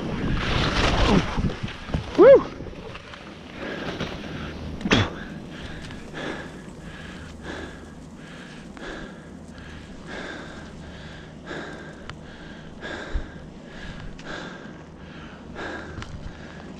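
Skis scraping and hissing through chopped-up snow, with a few brief squeaks, then a skier's rhythmic heavy breathing, a short puff about every two-thirds of a second. There is a single sharp knock about five seconds in.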